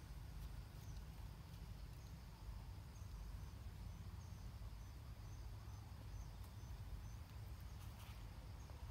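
Faint outdoor ambience with a steady low rumble. Between about three and six and a half seconds in, a faint high chirp repeats about three times a second.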